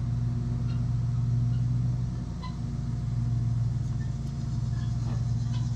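Steady low mechanical hum of a motor running, even in pitch and level throughout, with a few faint light ticks over it.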